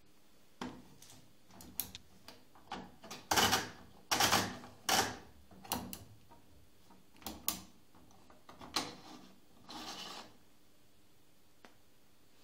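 A washing machine's plastic control knob turned by hand, making an irregular run of short rubbing and scraping noises with a few clicks.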